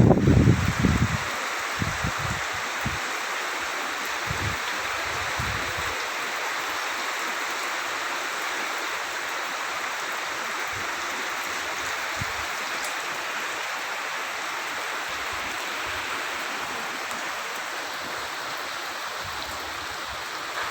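Steady hiss of heavy rain, with gusts of wind buffeting the microphone in the first few seconds; the rain eases a little toward the end.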